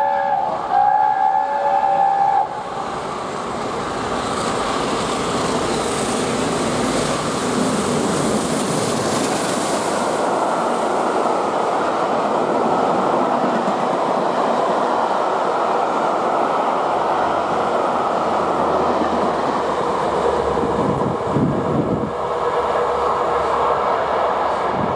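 LNER Peppercorn A1 Pacific steam locomotive 60163 Tornado sounding its steam whistle, which stops about two and a half seconds in. The locomotive and its coaches then run through at speed: a long, loud, steady rush of steam, exhaust and wheels on rail.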